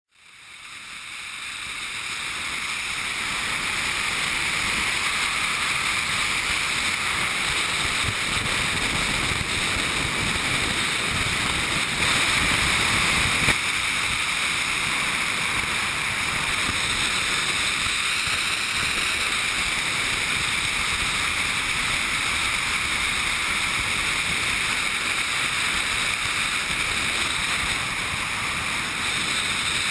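Steady rush of wind buffeting the microphone of a camera mounted outside a moving four-wheel drive, mixed with road noise, fading in over the first couple of seconds.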